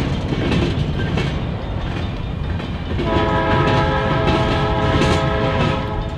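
Covered hopper cars rolling past with a steady wheel rumble and clicking over the rail joints. The locomotive's air horn sounds again about three seconds in and holds until near the end.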